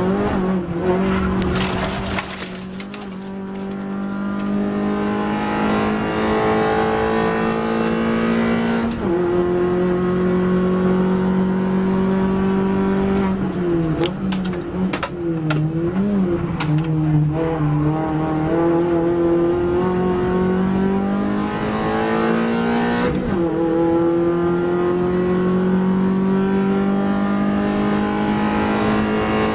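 MINI Cooper race car's four-cylinder engine heard from inside the cockpit, pulling hard with its pitch climbing steadily and dropping sharply at upshifts about nine seconds in and again near twenty-three seconds. Between these, around the middle, the pitch wavers up and down as the car lifts and brakes.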